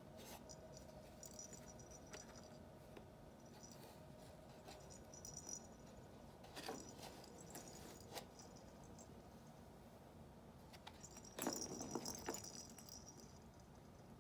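A kitten pawing and scratching at a hunting box toy: faint scattered scratches and light taps, with a louder cluster of scraping and knocks about two-thirds of the way through.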